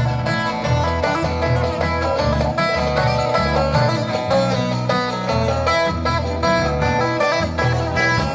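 Instrumental break of a Turkish folk song, plucked string instruments playing a busy melody over a pulsing bass line.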